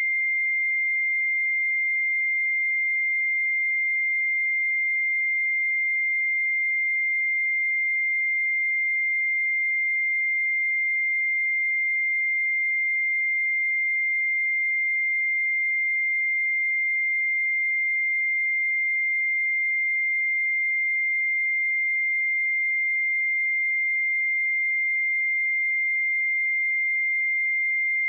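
A pure 2104 Hz sine-wave test tone, one steady high-pitched note that does not change in pitch or level.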